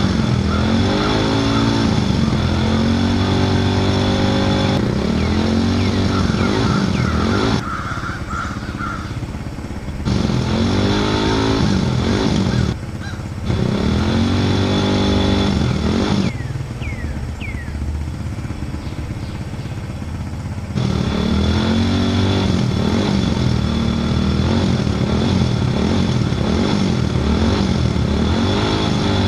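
Small vehicle engine revving up and down repeatedly, its pitch rising and falling; the sound changes abruptly several times, dropping quieter for a while in the middle.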